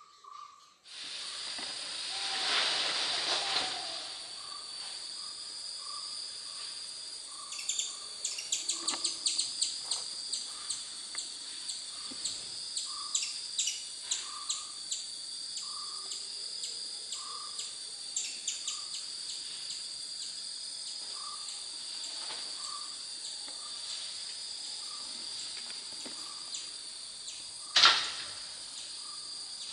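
Natural outdoor ambience: a steady high insect drone, with a short lower note repeated about once a second. Runs of fast ticking come through the middle, and there is a sharp knock near the end.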